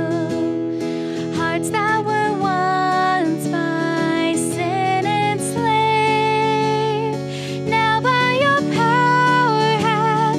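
Worship band playing an instrumental passage: acoustic guitar accompaniment under a melody line that slides between notes.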